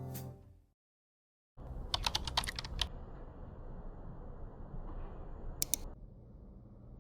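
Background music fades out, and after a second of silence there is low room ambience. Over it comes a quick run of light clicks, like typing, and two more clicks a few seconds later.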